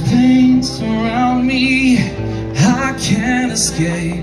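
Live music: a man singing long wavering notes over his own acoustic guitar, heard through the stage PA.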